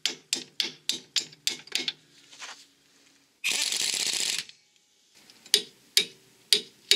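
Ratchet wrench clicking as it runs a nut onto the lower ball joint bolt: quick regular clicks, about four a second, then a burst of hiss lasting about a second midway, then slower clicks about two a second near the end.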